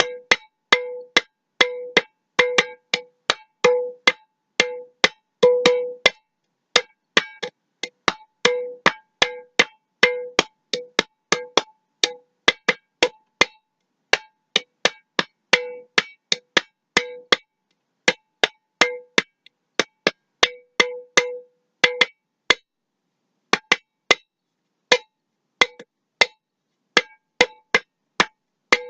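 A mason jar struck repeatedly as a percussion instrument in an uneven, playful rhythm of about two to three hits a second. Many hits ring briefly at one clear pitch, and others are short, damped clicks.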